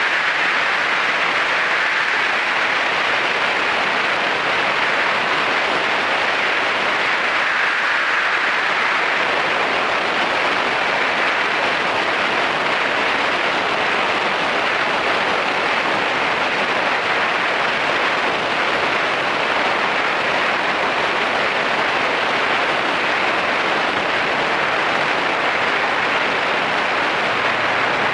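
Steady rush of wind and road noise from a moving Yamaha SRX400 motorcycle, unbroken throughout, with no distinct engine note standing out.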